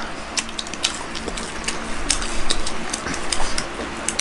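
Close-miked eating sounds: chewing and wet mouth clicks as pizza is pulled from the box and bitten into, with many small scattered clicks and ticks throughout.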